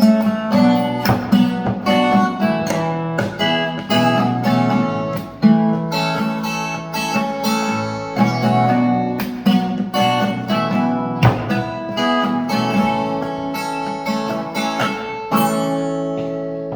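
Instrumental outro on guitar in the key of A: chords strummed in a steady rhythm, ending about fifteen seconds in on a final chord that rings out and fades.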